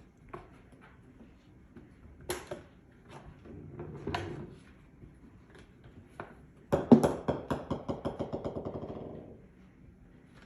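A golf ball hits a hard surface with a sharp click and bounces, the bounces coming faster and fainter until it settles. Light scattered taps come before it.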